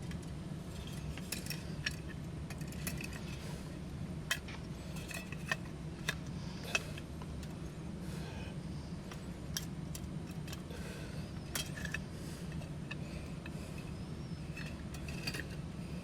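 Small metal parts and tools clicking and clinking as they are handled, with several sharper clinks about four to seven seconds in, over a steady low hum.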